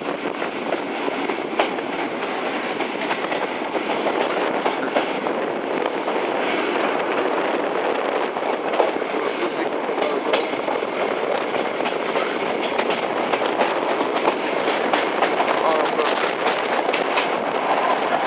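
Passenger train running along the track, heard from aboard the carriage: a steady rolling rumble with many sharp wheel clicks over the rails, denser from about four seconds in.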